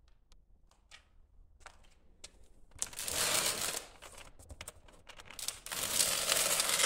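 A cardboard fireworks box being handled and shifted, giving two spells of rustling, scraping cardboard noise: one about three seconds in, the other from about five and a half seconds on, with a few light taps and clicks before them.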